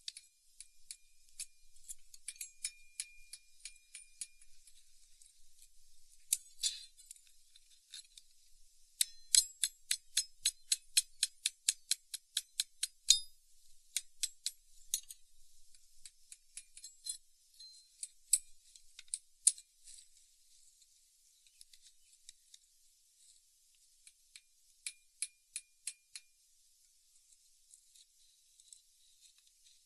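Light metallic clicks and clinks of iron tools and metal pieces being handled and tapped while a steel axe head is fitted to its handle. They come in runs, the busiest in the middle at about four taps a second.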